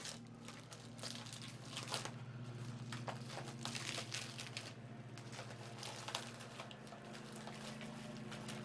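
Plastic cling wrap being peeled and crumpled off a monitor: irregular crinkling and tearing, with a denser burst of crinkling about four seconds in, over a steady low hum.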